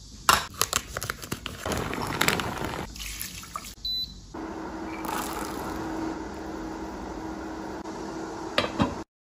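Dry brown sugar tapioca pearls handled and poured, with sharp clicks and rattling. Then, after a short break, water boiling with tapioca pearls in a pan on an induction hob: a steady bubbling with a low, even hum.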